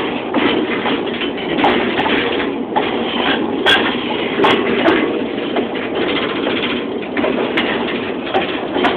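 Moving freight train heard from on board a car: a steady heavy rattle and rumble with frequent short, sharp knocks.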